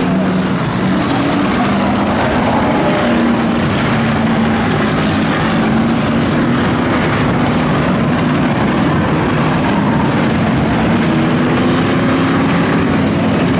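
A pack of V8 enduro race cars running on the track: a loud, steady engine drone made of several engines at once, their notes rising and falling as cars pass.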